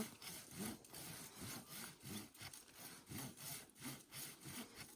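Hand saw cutting through the trunk of a lodgepole pine, about two strokes a second back and forth, the cut around halfway through.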